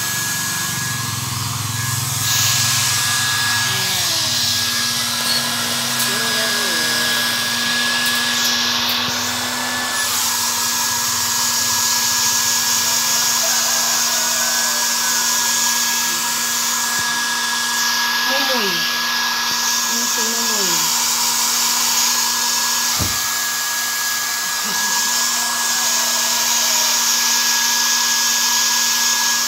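Hair dryer blowing steadily, drying a Persian cat's wet fur after its bath; the blowing grows stronger about two seconds in.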